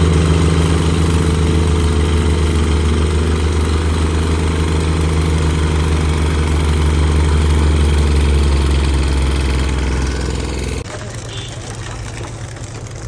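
Petrol plate compactor's engine running steadily as the plate vibrates over the dirt base, a loud even hum. About 11 seconds in it cuts off suddenly and a quieter rumble of a concrete mixer discharging down its chute takes over.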